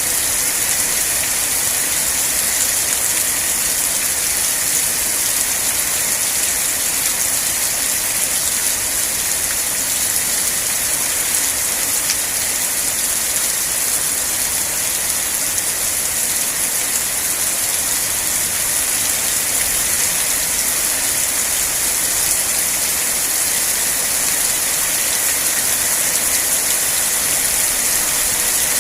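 Steady rain falling: a continuous, even hiss that does not let up.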